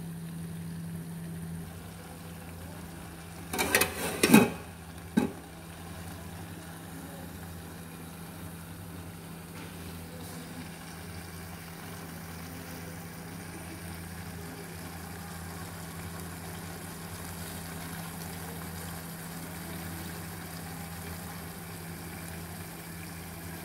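A steady low hum, with a quick cluster of sharp knocks about four seconds in and a single knock a second later.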